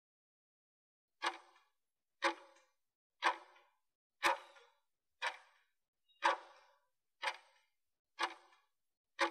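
Countdown timer's clock-tick sound effect: nine short ticks, one a second, starting about a second in, marking the last seconds of a 20-second work interval.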